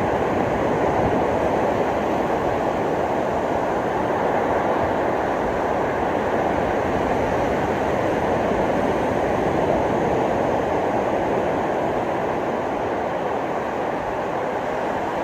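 Ocean surf: a steady wash of breaking waves on the beach, with no distinct single wave.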